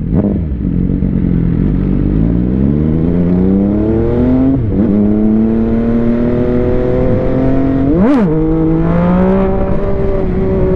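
MV Agusta Dragster 800's three-cylinder engine under hard acceleration. The pitch climbs for about four seconds, drops at a gear change, then holds steady, with a quick rev blip about eight seconds in.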